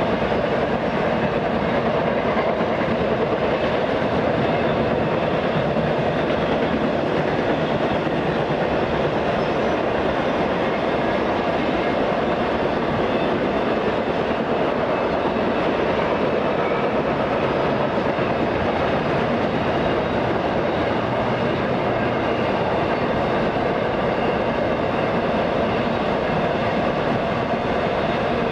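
A train's railroad cars rolling past steadily on the track, a continuous, even noise with no letup.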